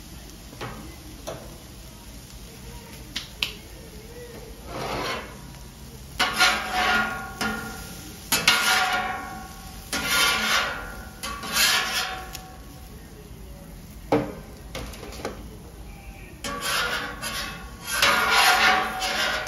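Metal griddle spatulas scraping across the steel top of a Camp Chef flat top griddle, scooping and gathering cubed potatoes, in a run of scrapes a second or so each with a metallic ring. A few light clicks come in the first few seconds.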